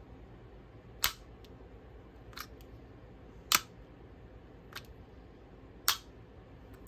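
A round metal plate snapping against the magnetic mount of a DJI Osmo Mobile SE gimbal, over and over: five sharp clicks about a second apart, the first, third and fifth much louder than the two between.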